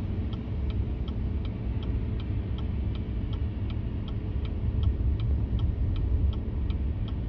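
Steady low road and engine rumble inside the cab of a Chevy 3500 dually pickup towing a heavy RV on a snowy highway. A sharp, even ticking at nearly three ticks a second runs over it.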